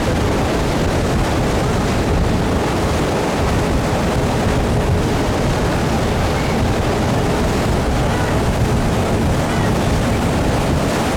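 Steady rush of wind on the microphone mixed with the noise of a moving boat's engine and water.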